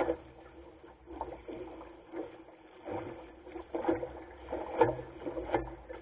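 Lake water splashing and slapping against the bow of a small wooden sailing skiff under way through a chop, in irregular bursts, with the heaviest splashes near the end.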